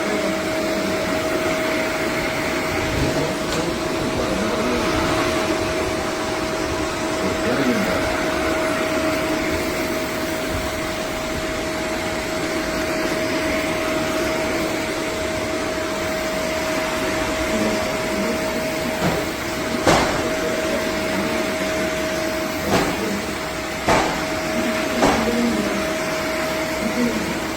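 Shark Stratos upright vacuum running with a steady whine over a rushing airflow noise, with several sharp knocks in the second half.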